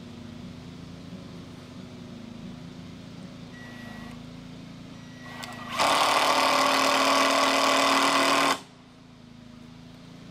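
Cordless power driver running a screw into the wooden frame of a solar panel mount: one loud, even rattling burst of about three seconds that starts and stops abruptly.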